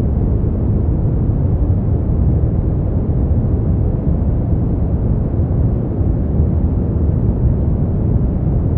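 Smoothed brown noise: a steady, deep rumbling hiss, heaviest in the low end and rolled off in the highs, with no changes or events.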